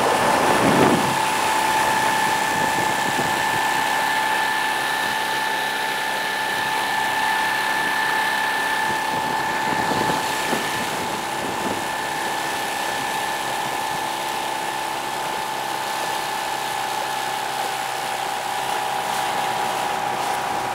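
Tohatsu outboard motor running steadily at speed, a high, even whine over the rush of water from the wake.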